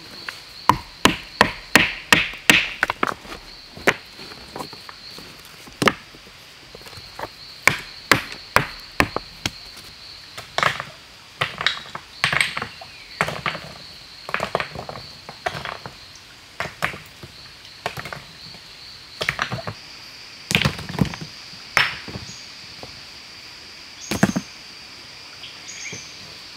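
Repeated sharp strikes, singly and in quick runs, like tool blows on wood, with a steady high-pitched insect buzz running underneath.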